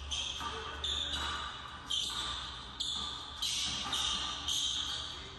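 Basketball dribbled on a hardwood gym floor: a run of bounces at uneven spacing, roughly one a second, each ringing briefly in the hall.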